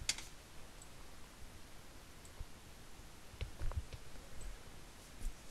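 A few computer mouse clicks over a faint steady hiss: one sharp click right at the start and a small cluster of clicks about two-thirds of the way through.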